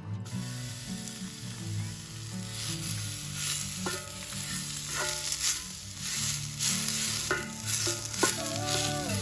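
Food sizzling in a hot pan, the sizzle swelling a couple of seconds in, with scattered sharp pops and spits.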